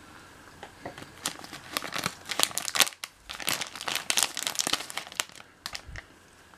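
Thin plastic bread wrapper crinkling as hands handle the Lunch Pack bag, in crackly bursts from about a second in until about five seconds in, with a brief pause near the middle.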